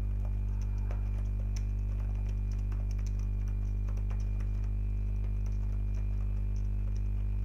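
Computer keyboard being typed on: a scatter of light key clicks over a loud, steady electrical hum.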